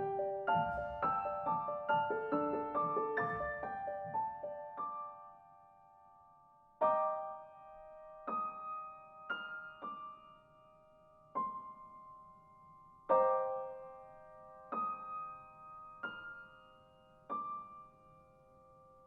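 Soft solo piano music: a quick run of notes over the first few seconds, then single notes and chords struck every second or two, each left to ring and fade.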